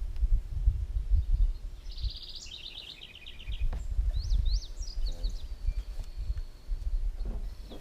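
Birds singing over a steady low rumble: a fast stepped trill about two seconds in, then a few sharp chirps and a thin whistle held for over a second.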